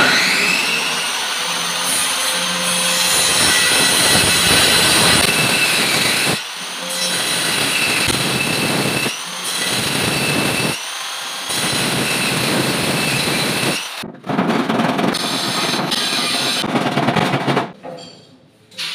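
Handheld corded circular saw spinning up with a rising whine and cutting a white cabinet board. It runs in several passes, dropping off briefly and spinning up again between them, and stops near the end.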